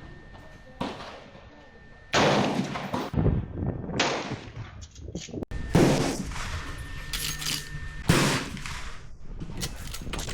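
Firearm shots, about five, spaced irregularly a second or two apart, each a sharp crack followed by a ringing decay.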